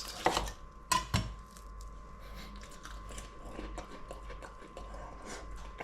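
A person chewing a mouthful of food while taste-testing it: a few sharp clicks in the first second and a half, then steady soft chewing.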